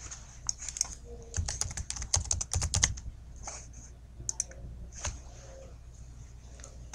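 Typing on a computer keyboard: a quick run of key clicks starting about one and a half seconds in and lasting about a second and a half, followed by a few separate clicks of a computer mouse.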